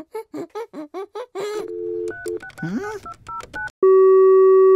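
Cartoon telephone sound effects: a run of quick rising-and-falling chirps, then a string of short electronic dialing beeps at different pitches, and near the end a loud steady tone like a phone's dial tone that cuts off suddenly.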